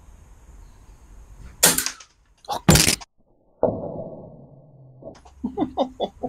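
Air rifle shot about a second and a half in, a short sharp crack, followed about a second later by more sharp noises; the sound then drops out briefly and a lower, fading sound follows.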